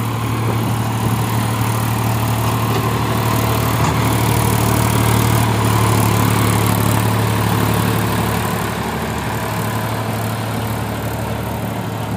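Massey Ferguson 245 DI tractor's diesel engine running steadily under load in third gear, hauling a fully loaded sand trolley up a slope. Its sound grows a little about a second in and eases slightly near the end.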